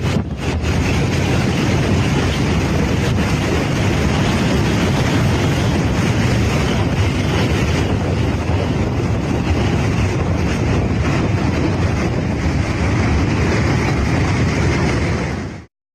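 Typhoon-force wind rushing and buffeting the microphone in a loud, steady roar of noise, cut off abruptly near the end.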